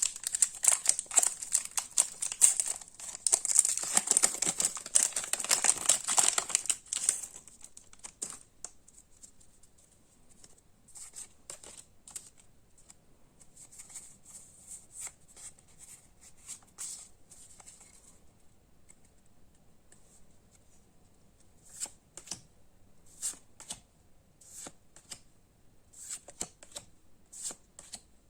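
Foil wrapper of a Pokémon card booster pack crinkling and tearing for several seconds, then a scatter of light clicks and flicks as the cards are handled.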